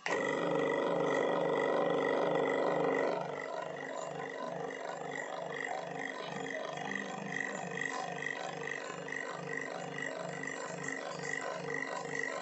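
Table fan running: a steady motor whine with air noise from the blades, pulsing evenly about two and a half times a second. It is loudest for the first three seconds, then settles lower.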